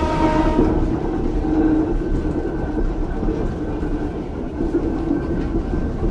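Ueda Kotsu's Moha 5250-series "round-window" electric railcar heard from on board: its horn sounds and stops just under a second in, then the car runs on along the track with a steady low rumble and hum.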